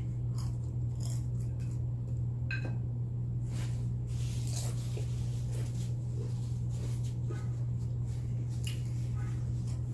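Close-up mouth sounds of someone chewing nachos: irregular wet, squishy chews with occasional sharp crunches of tortilla chips. A steady low hum runs underneath.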